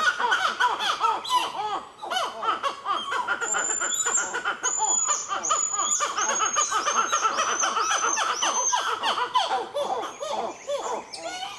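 Black-fronted titi monkeys calling loudly in a long, fast series of short notes that rise and fall in pitch: the species' loud song. A thin, high repeated note runs alongside for several seconds in the middle.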